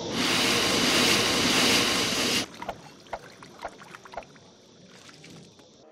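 Loud, steady rushing hiss that cuts off suddenly after about two and a half seconds, followed by quiet with a few faint light taps.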